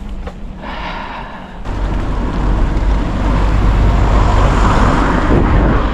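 Car driving past close by: a loud rumble of engine and tyre noise that swells about two seconds in and holds steady.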